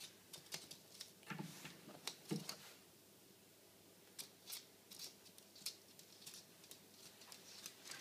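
Faint, irregular light clicks and taps from an African grey parrot's beak and claws on wood, with a few duller knocks in the first couple of seconds.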